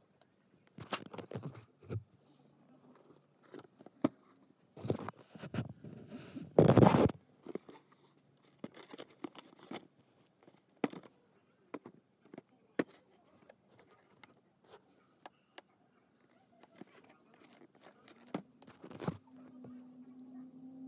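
Handling noises of merchandise and packaging being picked up and turned over: irregular rustles, scrapes and light clicks of a cardboard box and a plastic case, with a louder crunching rustle about seven seconds in.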